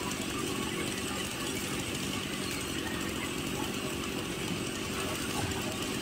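Band sawmill running steadily, a fast, even mechanical rattle that holds without change.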